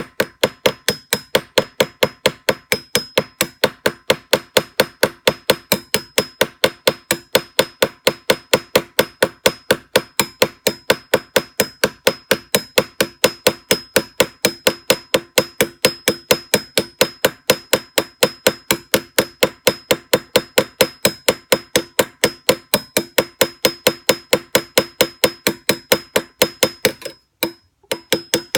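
A hammer tapping steadily on a steel nail punch to set a ball head rivet of balled wire, about three light strikes a second, each with a short metallic ring. The tapping breaks off briefly near the end, then resumes.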